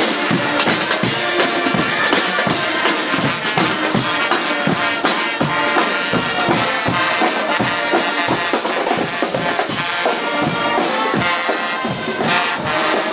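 Guggenmusik carnival band playing as it marches, trumpets and trombones over bass and snare drums beating a steady rhythm.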